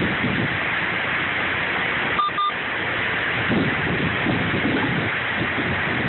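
Heavy rain pouring down in strong wind, a steady hiss with gusts buffeting the microphone. About two seconds in, two short electronic beeps sound in quick succession.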